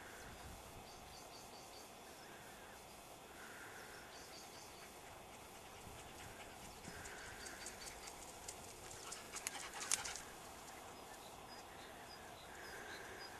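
Faint outdoor background, with a run of sharp clicks starting about seven seconds in that comes faster and louder, up to a loud knock about ten seconds in, then stops.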